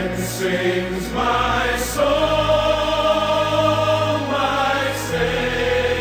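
Background music: slow, long-held chords that change every second or two over a steady low bass note.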